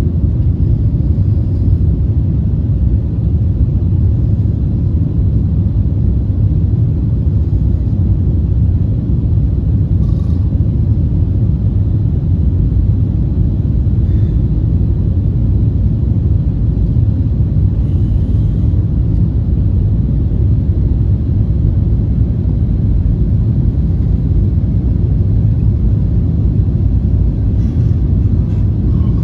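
Airliner cabin noise: a steady, loud low rumble of the engines and airflow heard from inside the cabin.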